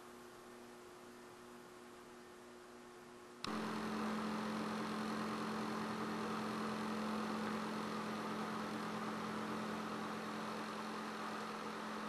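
Steady workshop background hum with a few fixed tones and no distinct events. About three and a half seconds in it jumps abruptly louder and holds at that level.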